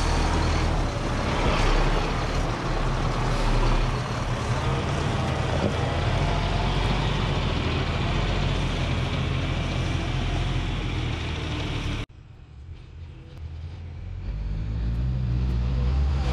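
Loaded GMC C8500 tandem-axle dump truck driving slowly past at close range: engine running with tyres rolling on a dirt track. About three-quarters of the way through the sound cuts off abruptly to a much quieter stretch, then the truck's engine builds up again.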